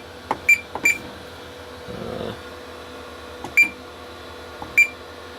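Gent Xenex fire alarm control panel keypad beeping as keys are pressed to put the panel into test mode: four short, high beeps, two close together near the start and two more about a second apart later on.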